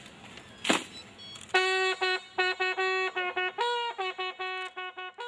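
A single sharp crack about a second in, then a bugle sounding a salute: quick runs of short notes, mostly on one pitch, with a higher note held briefly near the middle and again at the end.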